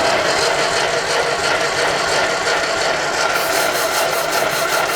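1955 Ferguson TEA-20 tractor's starter motor cranking the engine, which turns over without firing. It is a steady whine, with an even quick pulsing in the second half, and is the sign of a no-start that the mechanic puts down to weak spark, so he means to pull and check the plugs.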